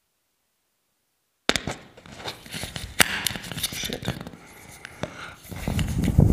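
Dead silence for about a second and a half, then close crackling, scratching and rustling of clothing being handled right at a clip-on microphone, with a loud low thump near the end.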